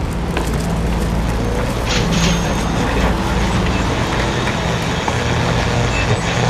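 Steady street noise with a vehicle engine running close by, a group of people talking and scattered handling knocks.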